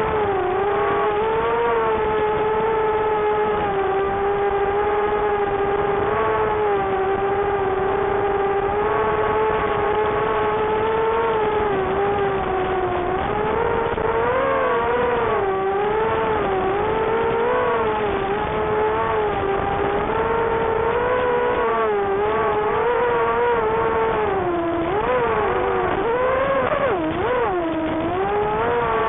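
Mini racing quadcopter's motors and 4-inch props whining steadily, the pitch rising and falling with the throttle, with quicker swoops near the end.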